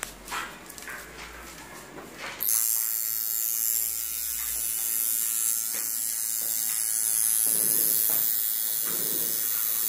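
Tattoo machine buzzing steadily as the needle inks a client's forearm. The buzz starts suddenly about two and a half seconds in.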